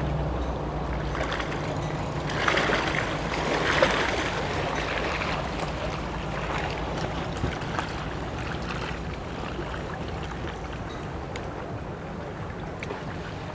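A boat engine running low and steady, fading over the first several seconds, with water splashing and sloshing that is loudest from a couple of seconds in until about five seconds in.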